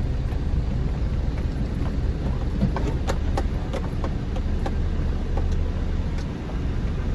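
A 2,000 kg light delivery truck driving slowly, a steady low engine rumble with road noise heard from the cab. A few light rattles or clicks come about three to five seconds in.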